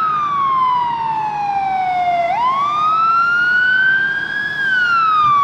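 Fire truck siren wailing: a slow wail that falls in pitch for about two seconds, sweeps back up, and starts to fall again near the end.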